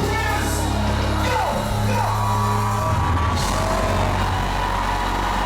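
Live worship music with sustained low chords that shift every second or two. Voices sing and cry out over it in long, wavering lines.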